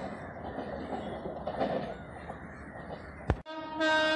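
Steady rumbling railway noise, broken by a sharp click about three seconds in, then an Indian Railways locomotive horn starts sounding near the end, one loud held tone.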